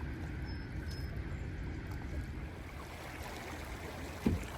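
Steady low rumble of a boat moving on a river, wind and water noise, with one short thump a little over four seconds in.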